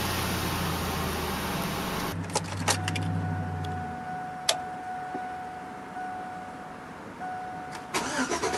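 Chevrolet Tahoe's dashboard warning chime sounding as a steady tone with the key switched on, broken briefly a few times, with a couple of sharp clicks. The starter begins cranking the engine near the end. In the first two seconds the engine of the previous Tahoe is running.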